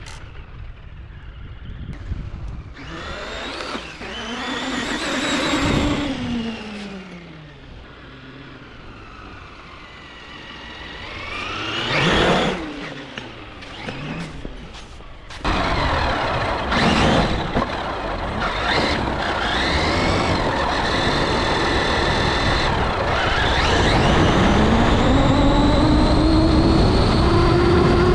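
Traxxas Maxx WideMaxx RC monster truck's brushless motor whining as the truck is driven, its pitch rising and falling with each burst of throttle and a loud pass about twelve seconds in. About halfway through it becomes louder and continuous, with tyre and drivetrain noise under the whine.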